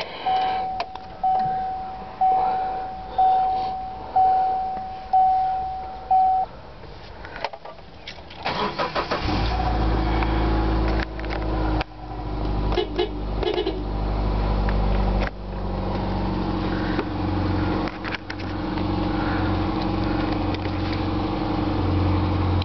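A dashboard warning chime dings about once a second until about six seconds in. About eight and a half seconds in, the 2002 Subaru Forester's 2.5-litre flat-four engine cranks briefly, catches, and settles into a steady idle.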